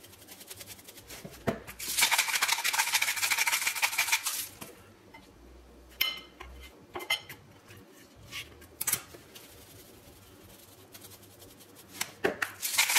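A hand spice grinder being twisted over raw chicken, a fast dry grinding rasp lasting about two seconds. It is followed by a few sharp clinks of a fork against a ceramic plate as the chicken breasts are turned, and the grinding starts again near the end.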